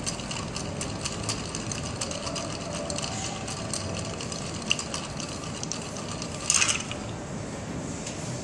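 Ice cubes clinking quickly and steadily against a glass mixing glass as a long bar spoon stirs a cocktail. There is a louder clatter about six and a half seconds in, and the clinking then stops.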